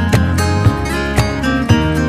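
Background music: strummed acoustic guitar with a steady beat.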